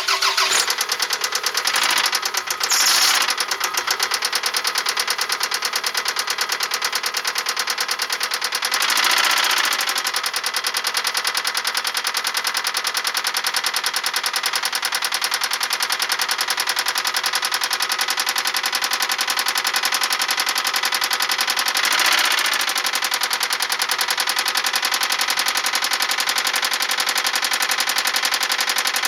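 1999 Toyota Camry Solara's 2.2-litre four-cylinder engine running with a loud, rapid, even knocking. The engine speed swells briefly a few times. The knock is rod knock from worn connecting-rod bearings.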